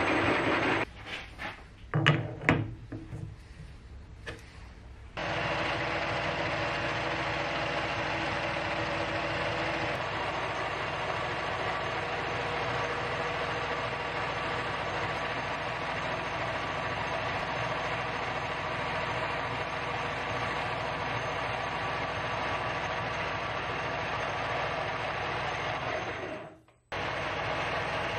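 Metal lathe running and cutting into an aluminium workpiece, a steady mechanical whir with a faint hum in it. A few seconds in it goes quieter with a few sharp knocks, then the steady running comes back; it cuts out briefly near the end.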